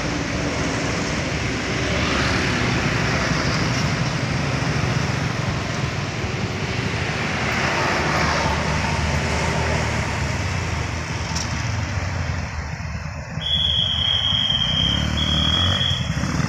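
Road traffic at a busy junction: a lorry and then a bus pass close by in swells of engine and tyre noise, with motorcycle engines running. Near the end a high, steady tone sounds twice, a longer one and then a short one, over the motorcycles pulling away.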